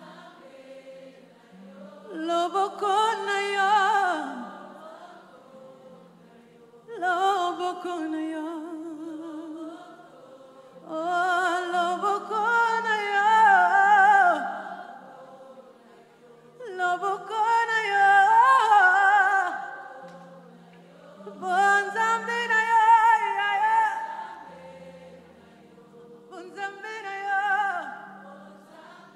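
Live gospel worship song sung in Lingala: a woman's lead voice sings phrases of a few seconds with vibrato, with quieter gaps between them, over backing singers and a low held keyboard chord.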